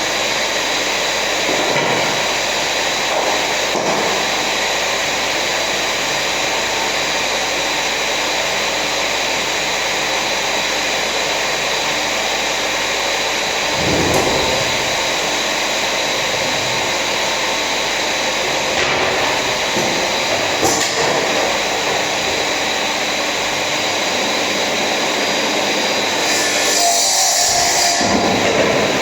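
A power tool's electric motor running steadily with a high whine, with a few brief changes in load and a louder, harsher stretch near the end.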